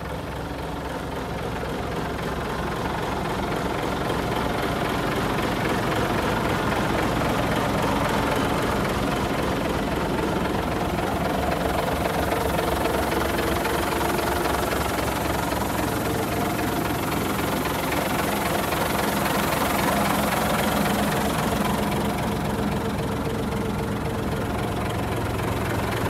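Scania P124's 12-litre straight-six diesel idling steadily, growing louder over the first few seconds.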